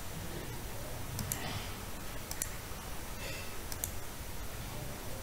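Computer mouse clicking: three sharp clicks, each a quick double tick, over a low steady hum.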